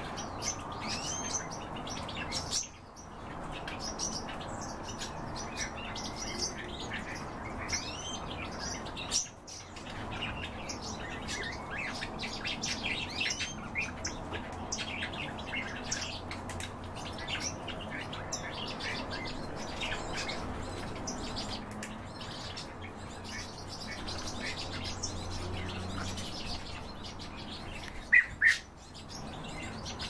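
Many birds chirping and twittering without pause over a steady low hum, with one louder call near the end.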